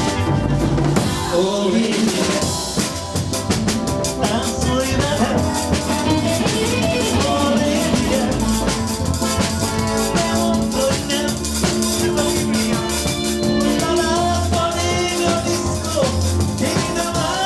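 Live dance-band music: a drum kit keeping a steady beat under a Yamaha synthesizer keyboard.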